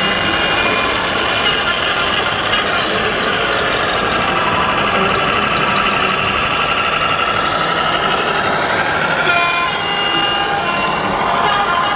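1/14-scale radio-controlled trucks and construction machines running: a steady, dense mechanical sound with wavering whines from their motors.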